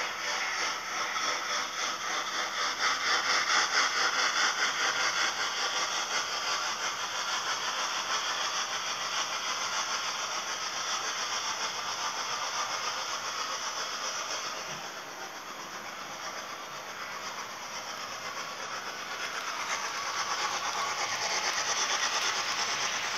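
Model steam locomotive and its cars running on a layout track: a steady hissing sound with a fast rhythm. It dips for a few seconds past the middle and grows louder again near the end as the train comes back close.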